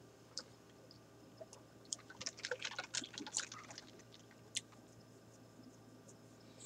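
Faint wet mouth clicks and smacks from eating and drinking, a run of small clicks lasting about three seconds in the middle.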